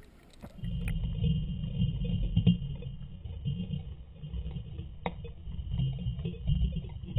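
Muffled, irregular low rumbling and sloshing of pool water picked up by a camera underwater in its housing, with a faint steady high hum over it and a couple of faint knocks.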